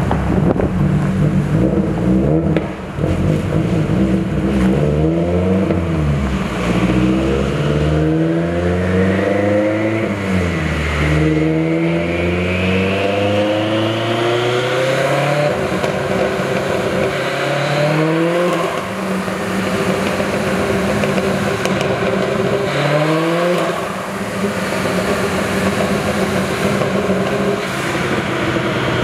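Subaru WRX STI's turbocharged flat-four engine running on a dyno, revving up in about five rising sweeps that each drop back, then holding a steady note near the end. A high whine rises along with the middle sweeps.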